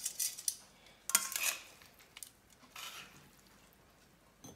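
Metal kitchen tongs clinking against a ceramic plate while spaghetti is served: a few light clicks at first, the loudest clatter just after a second in, and a softer scrape near three seconds.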